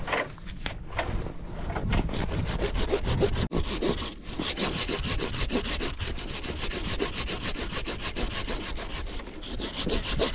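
Folding pruning saw cutting through a snow-covered tree branch with quick, even back-and-forth strokes, with a brief break about three and a half seconds in.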